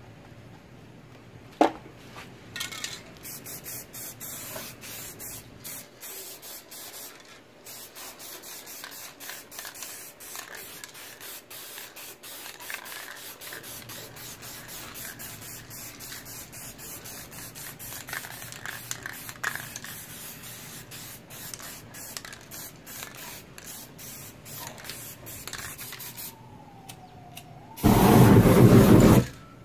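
Aerosol spray-paint can hissing in many short spurts. Near the end comes a much louder whoosh of flame lasting about a second and a half as fire sweeps over the painting.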